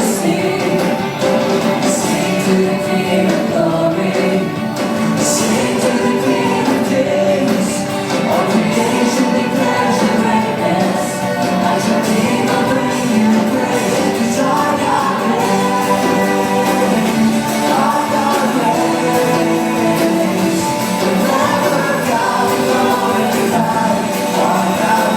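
Live worship music: a band playing while a group of voices sings along, with reverberation from a large hall.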